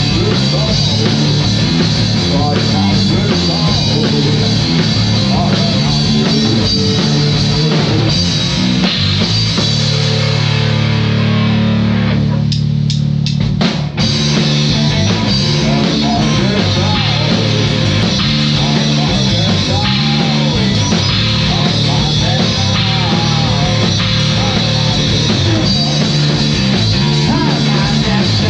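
Rock song played on a drum kit with distorted guitar. About ten seconds in, the drums drop out for a few seconds, leaving a held low chord with a few sharp clicks, then the full band comes back in.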